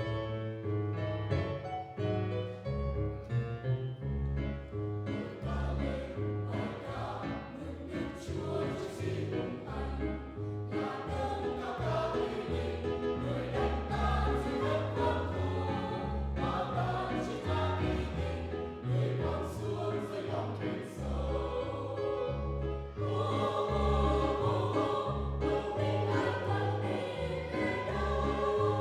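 Church choir singing a hymn in Vietnamese, accompanied by electronic keyboard with a steady bass line.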